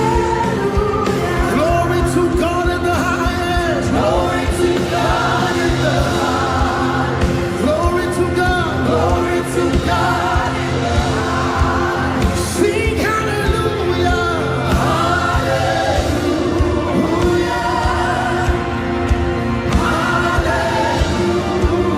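Live gospel worship music: a band with a steady bass and drum groove under a melody line sung with rising and falling, held notes.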